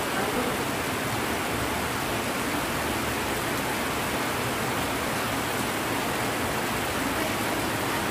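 Heavy rain falling steadily, a dense even hiss of drops on leaves and wet ground.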